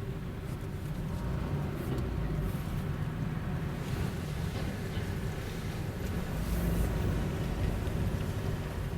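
Car being driven: a steady low engine and road rumble that swells briefly a little before the end.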